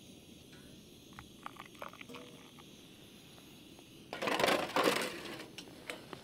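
Small clicks and taps of camp cooking gear being handled, then about a second of loud rustling noise starting about four seconds in, followed by a few more taps.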